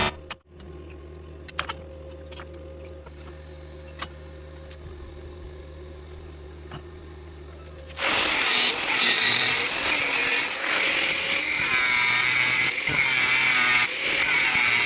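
Stick welder humming at idle with a few clicks, then about eight seconds in the electrode arc strikes and burns with a steady loud crackle and hiss as the rod welds thin sheet metal.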